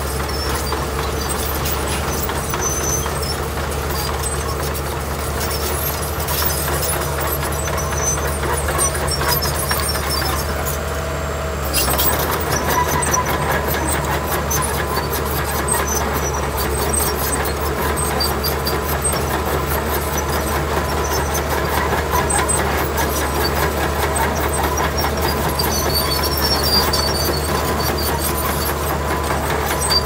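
Heavy construction machinery's diesel engines running steadily, with an abrupt shift in the sound about twelve seconds in.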